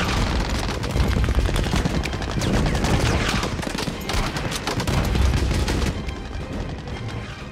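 Battle sound effects: dense, rapid machine-gun and rifle fire over a deep rumble of shellfire, thinning out near the end.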